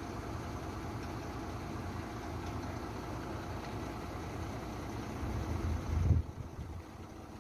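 Truck diesel engine idling steadily, with a louder low rumble swelling up about six seconds in.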